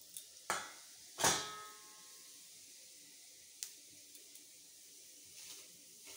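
Whole cumin seeds sizzling faintly in hot oil in a metal kadai. Two metallic clanks of a utensil against the pan come about half a second and a second in, the second ringing on briefly, with a sharp tick near the middle.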